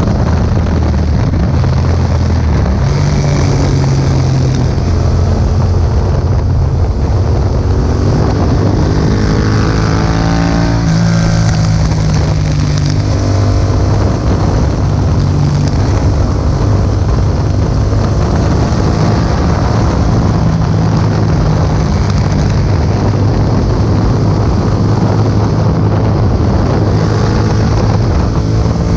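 Yamaha MT-07's parallel-twin engine running through an Akrapovic exhaust while riding, with wind noise on the microphone. About nine seconds in, the revs climb sharply for a couple of seconds, then drop back.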